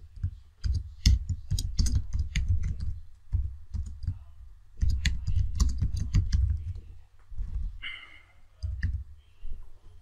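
Computer keyboard typing in quick runs of keystrokes, with a pause about a third of the way through and only a few scattered clicks near the end.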